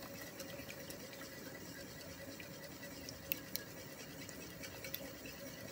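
Wire whisk beating raw eggs in a ceramic bowl: a faint, quick scraping and tapping of the wires against the bowl, with a few sharper clicks in the second half.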